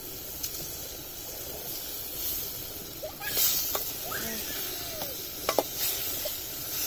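Tomato pieces sizzling in hot oil in a steel pot, with a louder hiss a little after three seconds. A metal slotted ladle stirs and clinks against the pot a few times in the second half.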